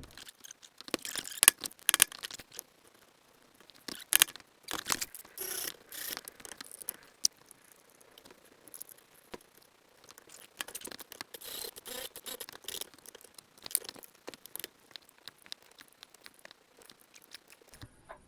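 Irregular clatter of work on a wooden stand: sharp knocks and clicks mixed with short scraping and rattling, busiest in the first half and again a little past the middle.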